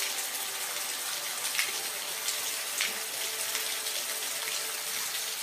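Steady rain: an even hiss with scattered single drops ticking through it.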